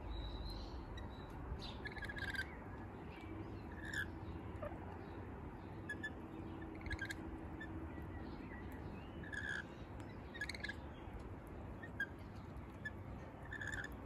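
Rainbow lorikeets giving short, high chirping calls, scattered every second or two, over a steady low background rumble.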